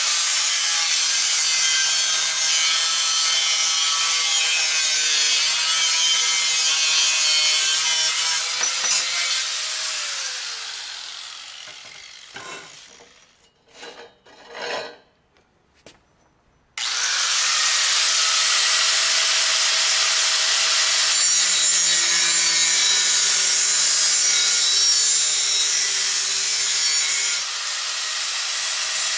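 Angle grinder with a cut-off disc cutting through a wooden chair leg, then its motor spinning down to a stop about ten seconds in. A few short knocks in the lull, then the grinder starts up suddenly and runs loud, cutting again.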